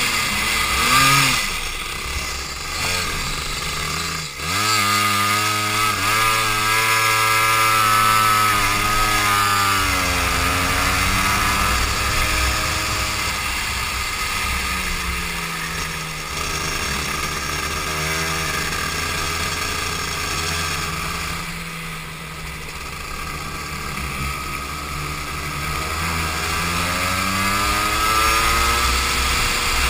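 Go-kart engine heard from on board. It rises in pitch as the kart accelerates and falls as it slows, several times over, with a brief drop about four seconds in.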